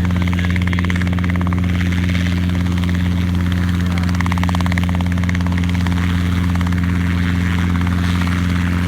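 Light training helicopter running steadily, its rotor and engine making a constant low drone.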